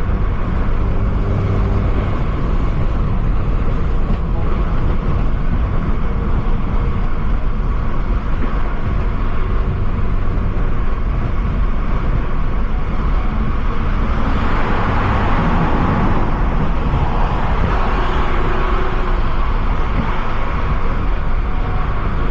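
Car driving on the road: steady low road and engine rumble, with a louder rushing swell lasting a few seconds about two-thirds of the way through.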